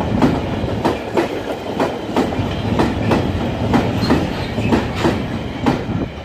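Freight train of loaded double-deck car-carrier wagons rolling past, its wheels clacking in a steady rhythm over the rail joints above a continuous rumble. The sound begins to fall away near the end as the last wagon goes by.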